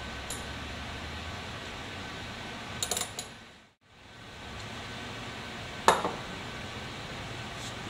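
A few sharp clicks of a ratchet wrench with a 5/16-inch socket tightening a screw and sealing washer into a valve piston, then one loud metallic clink about six seconds in as the wrench is set down on the wooden workbench. A steady hum runs underneath.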